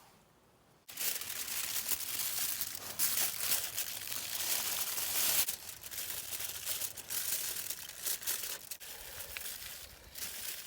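Crinkling, crackling noise of material being handled. It starts abruptly about a second in and is loudest in the middle, made of many small cracks.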